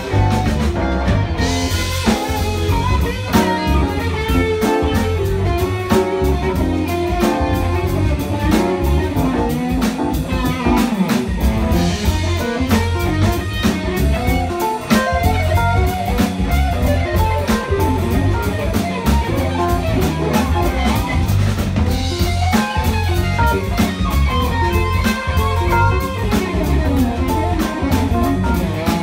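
Jazz-fusion band playing live: electric guitar up front over drum kit, electric bass and keyboard, with steady drumming and melodic lines that bend in pitch.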